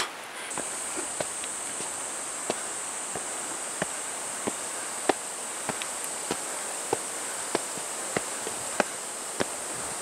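Insects buzzing in one steady high-pitched drone that starts about half a second in, with steady footsteps on trail steps about every half second.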